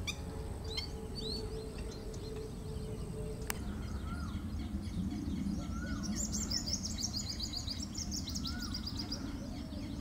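Several small wild birds chirping and calling over a steady low background noise, with a rapid high twittering in the second half. A single sharp click comes about three and a half seconds in.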